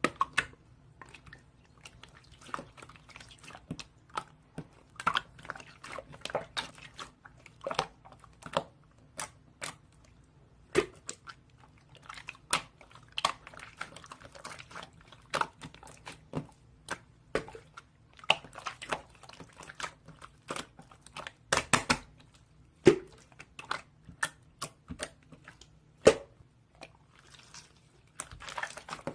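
Irregular series of sharp clicks and short crunches close to the microphone, a few each second, over a steady low hum.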